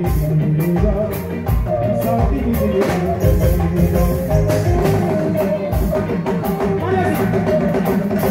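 Live band playing loud, steady dance music, with drum kit and percussion keeping a driving beat under electric guitar lines.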